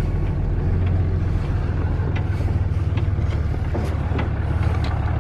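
Pickup truck driving slowly across a dirt field, heard from inside the cab: a steady low engine and drivetrain rumble with a few light knocks and rattles.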